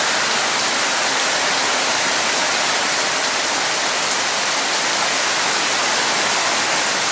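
Heavy tropical rain falling steadily, a dense even hiss of downpour on roofs and ground.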